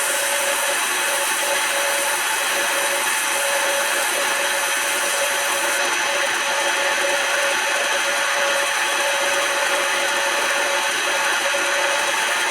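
Smart and Brown model L metal lathe running steadily with a constant whine while a tool cuts a spinning wooden file handle, giving a steady hiss of wood being turned. The high part of the hiss eases slightly about six seconds in.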